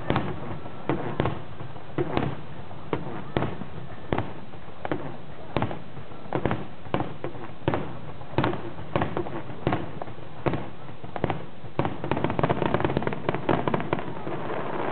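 Fireworks bursting: an irregular series of sharp bangs and pops, coming thick and fast near the end, over the murmur of a crowd.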